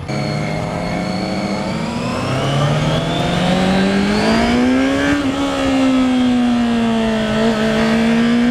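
Honda CBR650F's inline-four engine pulling away from a stop. The revs climb, drop at a gear change about a second and a half in, then climb again for several seconds before easing off and holding steady, with wind rushing over the helmet-mounted microphone.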